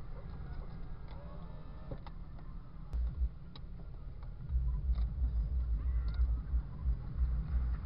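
Low rumble of a 1999 Jeep Cherokee XJ moving slowly over rough ground, heard from inside the cab, with irregular low thumps that grow stronger about halfway through.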